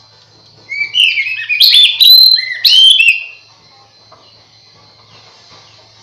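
Oriental magpie-robin (kacer) singing one loud burst of quick, clear whistled notes that slide up and down, lasting about two and a half seconds from just under a second in.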